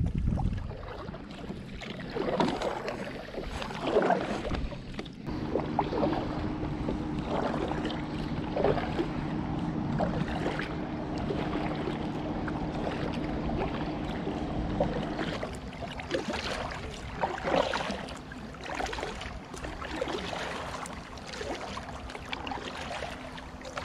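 Kayak paddle blades dipping and splashing in river water, a stroke about every one and a half to two seconds, with wind on the microphone. A steady low hum runs under the strokes from about five seconds in and drops in pitch about fifteen seconds in.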